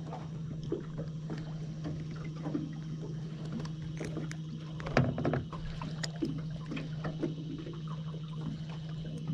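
Electric bow-mount trolling motor humming steadily, with small ticks and light water sounds on the boat, and a sharp knock about five seconds in.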